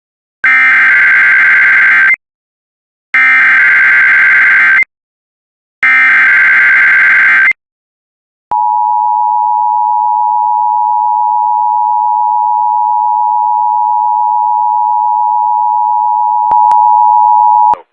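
Emergency Alert System header: three bursts of warbling SAME data tones, each under two seconds, then the steady two-tone attention signal held for about nine seconds. Together these announce a severe thunderstorm watch.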